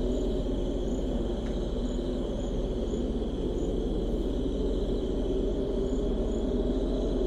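Desert ambience: a steady low wind rumble with crickets chirping at an even pace, a little more than once a second.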